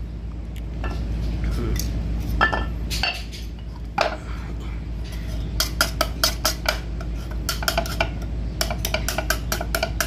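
Steel plates of a concrete cube mould being handled with a few separate metal clinks, then from about halfway in a hand brush scrubbing the steel plate in rapid strokes, about four to five a second, as it is cleaned before oiling.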